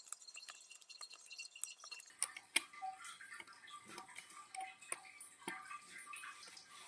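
Faint, irregular light clicks and taps, a little fuller from about two seconds in.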